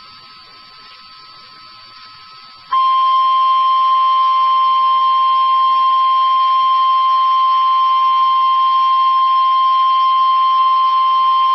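National Weather Service 1050 Hz warning alarm tone: one loud, steady, unbroken tone that starts about three seconds in. It is the alert signal before a severe thunderstorm warning is read. Before it, only a faint steady tone over low hiss.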